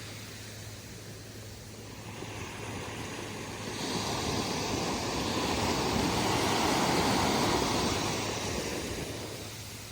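Atlantic surf on the beach: a wave swells up about 4 seconds in, breaks and washes in loudest past the middle, then fades near the end.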